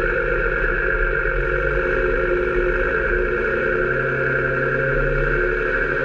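New Holland TM155 tractor's six-cylinder diesel engine running steadily while pulling a plough through the field.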